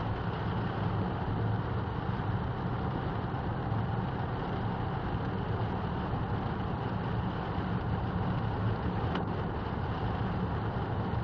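Steady road noise inside a car driving in heavy rain on a wet motorway: a low cabin rumble under an even hiss of tyres on standing water and rain on the car.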